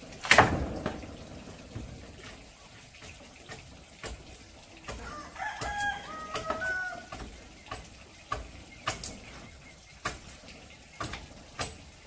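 A rooster crowing in a run of short calls in the middle, over scattered light knocks and taps of wood and bamboo pieces being handled; the loudest sound is a sharp knock with a brief ringing tail just after the start.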